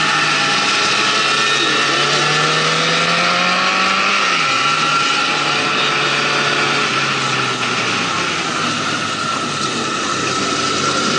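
Motorcycle engine heard on board at road speed, its pitch climbing for about four seconds as it accelerates, then dropping sharply at a shift or throttle-off and running lower as the bike slows into a bend. A steady rush of wind and road noise sits under it.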